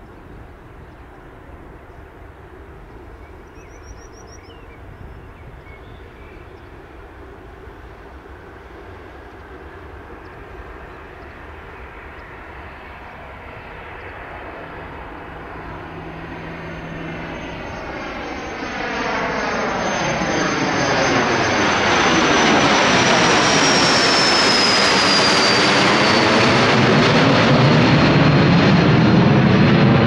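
Cessna CitationJet CJ1's twin Williams FJ44 turbofans at takeoff power. The sound is distant at first and grows steadily louder as the jet climbs out toward and over the listener. Its high whine drops in pitch as it passes, about two-thirds of the way in, and is loudest near the end.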